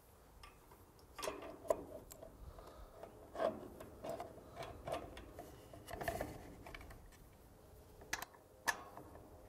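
Faint, scattered clicks and taps of small metal parts being handled as a coil spring and pivot pin are fitted into a sensor bracket.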